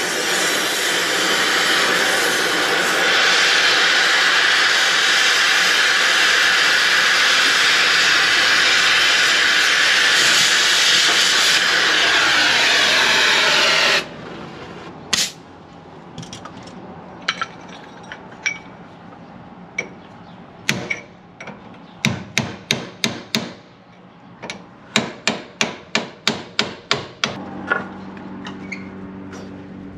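Grinder cutting steel at a combine's auger bearing housing, a steady loud grind that stops abruptly about halfway through. Then a series of sharp metal hammer strikes, several in quick runs.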